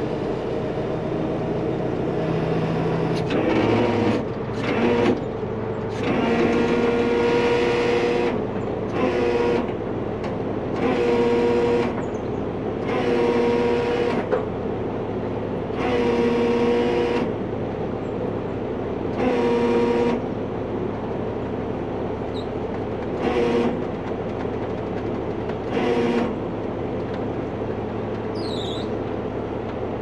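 Heavy-duty rotator wrecker's diesel engine running steadily under a hydraulic load as it winches a stuck backhoe, with a steady whine that rises in bursts of one to two seconds, about ten times, as the hydraulic controls are worked.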